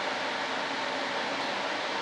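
A steady, even hiss with no knocks, clicks or other separate sounds in it.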